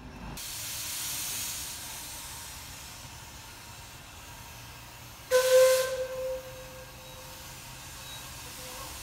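Shay geared steam locomotive venting steam with a steady hiss. About five seconds in its steam whistle sounds, loud at first, then held more softly for a few seconds.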